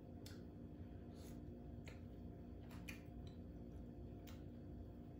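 Faint, scattered clicks and small cracks as boiled seafood shells are picked apart by hand, about six over the few seconds, over a steady low hum.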